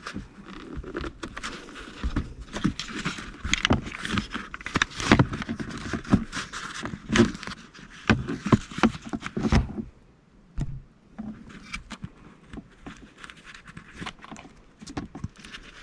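Shift boot being worked onto a shifter shaft by hand: irregular rubbing, scraping and small clicks, busy for most of the first ten seconds and sparser after that.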